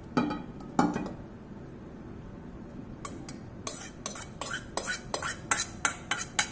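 A metal utensil scraping and clinking against a stainless steel mixing bowl as salad is tipped and scraped out onto a plate. A couple of clinks come near the start, then after a quiet stretch a quick run of clinks, about three a second.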